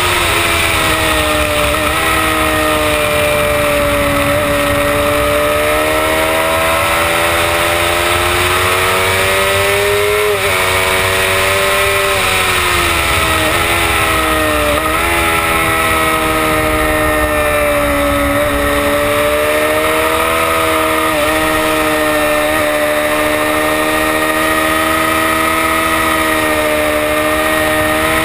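Honda CBR600RR's inline-four engine running hard on track, heard from a camera on the bike's fairing. The revs rise and fall through the lap, with several short, sharp dips in pitch at the gear changes.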